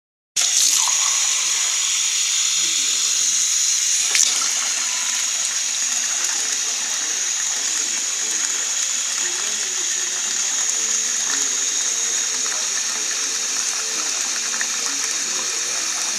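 Tap water running steadily into a glass measuring cup. It starts abruptly about half a second in.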